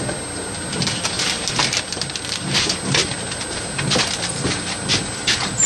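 Close handling noise: scattered crackles and clicks of movement near the microphone.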